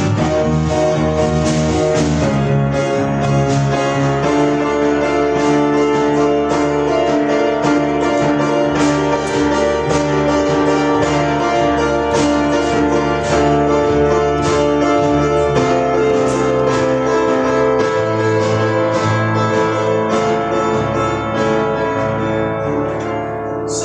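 Instrumental overture of a stage musical played on piano, with many struck notes over held chords, heard through an old VHS camcorder's own microphone with poor sound quality.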